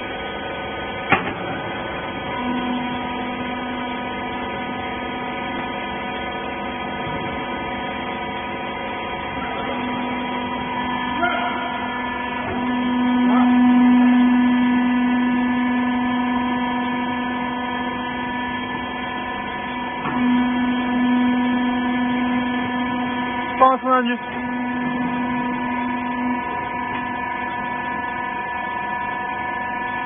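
Hydraulic power unit of a small horizontal rag baler running with a steady electric hum. It swells louder for a few seconds in the middle as the ram compresses the rags, with a couple of short metallic clanks.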